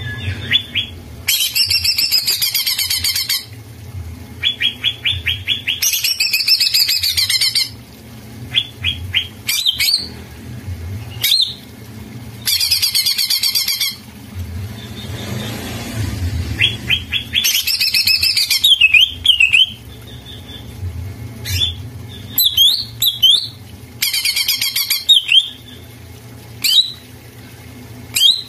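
Male green leafbird (cucak ijo) in full song (gacor). Loud bursts of rich, fast-changing song about two seconds long alternate with rapid runs of ticking notes. In the last third come short slurred whistles.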